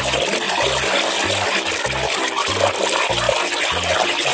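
Water sloshing and splashing in a basin as a hand churns and scrubs a toy in foamy water. Background music with a steady bass beat plays underneath.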